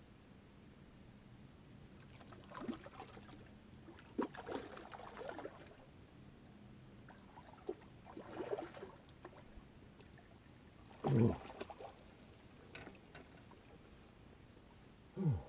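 Water splashing and sloshing in scattered bursts as a hooked fish is played on a bent spinning rod at the water's edge. Near 11 seconds and again near the end comes a short, louder low sound that drops quickly in pitch.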